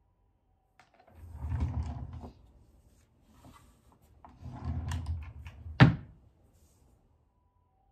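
Chest-of-drawers drawer sliding open, then a few seconds later sliding closed and shutting with a sharp thunk.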